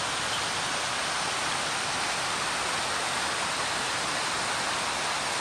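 Shallow rocky stream flowing over stones and small cascades: a steady, even rush of water.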